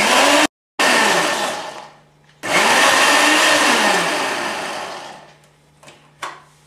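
Electric mixer grinder running in two short pulses on cooked spinach and potato, each burst of the motor dying away as it winds down, pulsed so the paste stays coarse rather than fine. A few light knocks near the end.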